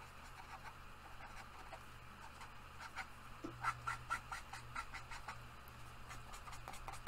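Faint squeaks and scratches of a felt-tip marker colouring on paper in short strokes, over a low steady hum.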